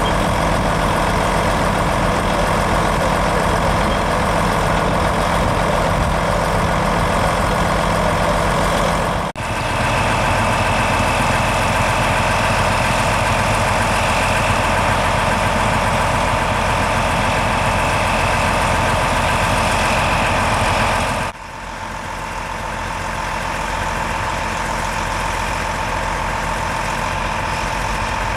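A New Holland Versatile 9684 four-wheel-drive tractor's diesel engine running steadily. The sound breaks off and changes abruptly twice, about a third and three quarters of the way through, and a high steady whine rides over the engine in the middle stretch.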